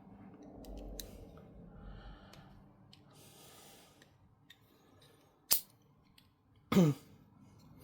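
Handling of a folding utility knife: soft rustling as plastic film comes off it, then one sharp click about five and a half seconds in, with a brief voiced sound near the end.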